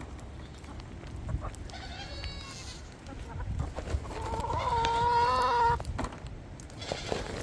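Chickens clucking, with one long wavering animal call, the loudest sound here, about four seconds in.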